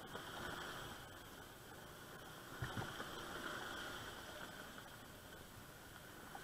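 Motor scooter riding along at low speed, its engine and road noise heard faint as a steady hiss, with a single knock about two and a half seconds in.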